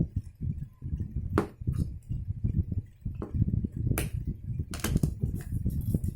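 Plastic parts of an HP Q2612A toner cartridge being handled and fitted together during reassembly: irregular rubbing and fumbling, with a few sharp clicks and knocks, the clearest about a second and a half in and around four to five seconds in.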